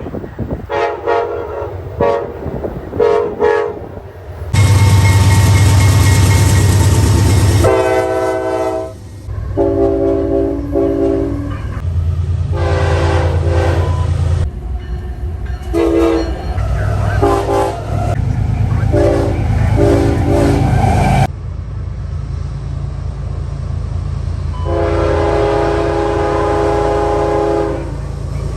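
Locomotive air horn playing a horn show: a string of short multi-note blasts and a few long ones, over the low rumble of the train. A loud rushing roar of the train passing close comes about five seconds in.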